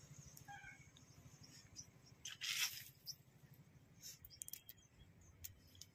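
Quiet outdoor ambience over a low steady hum, with one brief rustling noise about two and a half seconds in and a few light clicks near the end.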